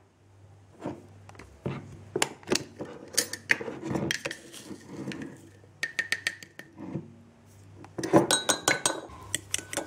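Metal spoons clinking and tapping against a ceramic mug and a glass jar as sugar is spooned in: scattered light clinks, with a quicker run of clinks near the end.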